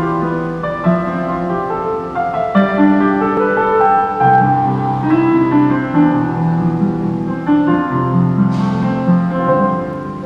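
Piano playing slow chords, each held for a second or so before moving to the next.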